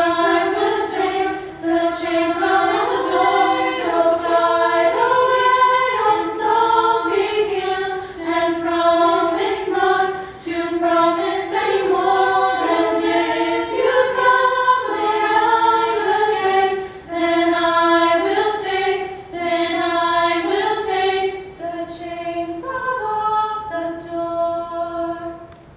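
Women's choir singing a cappella in close harmony, moving through sustained chords; the singing drops away near the end.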